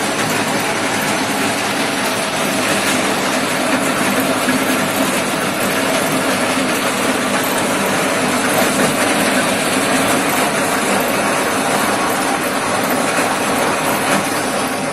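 Areca nut peeling machine running steadily, a dense, even mechanical noise as it strips the husks from the nuts.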